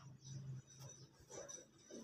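Faint handling sounds of a cut plastic water bottle as a mango cutting is pressed into its neck: a few small clicks and crinkles, over a low hum that comes and goes.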